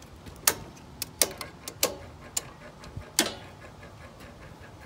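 Circuit breakers in a pool-equipment breaker panel being switched back on to restore power to the pump: a run of about nine sharp clicks and snaps over some three seconds, the loudest about half a second in and near the end of the run.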